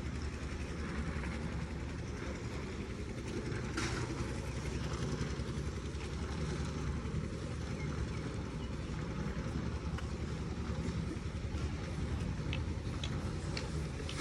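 Heavy road-construction machinery running steadily, a continuous low engine sound with a few faint clicks over it.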